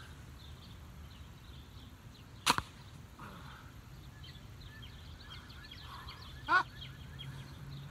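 Tennis ball launcher firing a tennis ball into a man's back at close range: a single sharp crack about two and a half seconds in. A short, loud cry rising in pitch comes near the end, with birds chirping faintly throughout.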